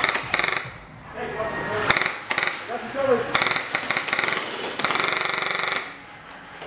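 Airsoft rifles firing several rapid full-auto bursts, the longest lasting over a second, with short pauses between. Faint shouting comes in between bursts.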